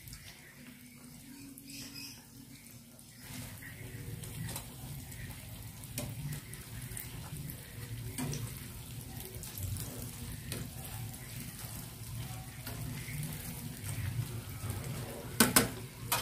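Cireng (tapioca-dough fritters) sizzling as they deep-fry in hot oil in a pan, a steady hiss scattered with small crackles. A metal utensil turns them, with a louder knock against the pan near the end.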